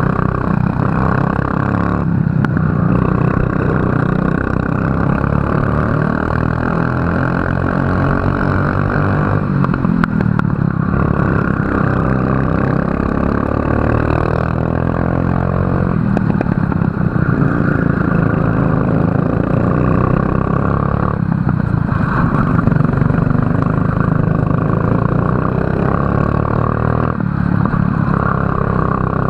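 Racing kart engine running hard through a lap. The pitch drops briefly four times, about 2, 10, 21 and 27 seconds in, and climbs back each time as it accelerates again, with one long rising sweep in the middle.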